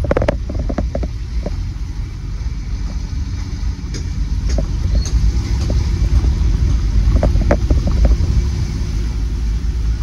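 Engine and road noise heard inside a moving vehicle's cabin: a steady low rumble with scattered small knocks and rattles, growing a little louder in the second half.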